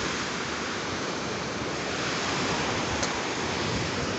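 Steady wash of surf on a beach, an even rushing noise with no distinct wave breaks.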